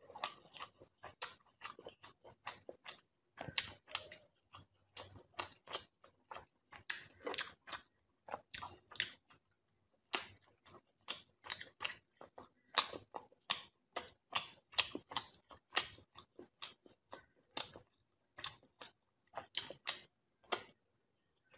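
Close-miked eating sounds: chewing a mouthful of fish curry and rice, a steady run of sharp, wet mouth clicks and smacks, several a second.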